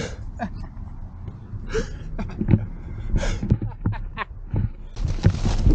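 Low rumble of wind on the camera microphone, with scattered clicks, knocks and handling rustles, and a few short breathy vocal sounds from the skater. About five seconds in, a louder burst of rustling.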